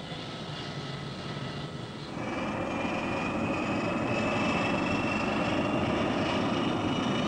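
Propeller airliner engine running, growing louder about two seconds in, with a thin high whine that edges slowly upward over the steady engine noise.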